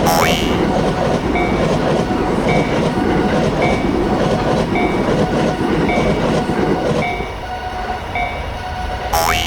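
Japanese level-crossing warning bell ringing in a steady repeating two-note pattern while a train rumbles past over the crossing; the train noise drops away about seven seconds in. A short sweeping tone sounds right at the start and again near the end.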